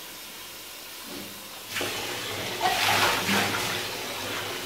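Water pouring and splashing, starting about two seconds in and running for a couple of seconds.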